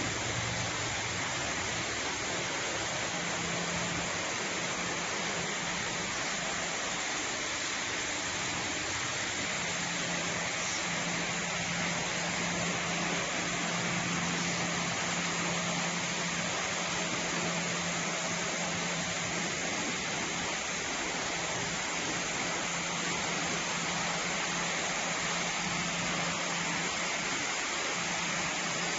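Steady, continuous industrial machinery noise from a wood pellet production line, with a constant low hum under an even rushing noise.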